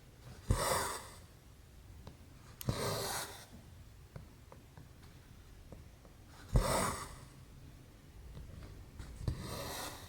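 Cross-stitch needle and floss drawn through 11-count canvas: four short swishes, each opening with a sharp click, about every three seconds.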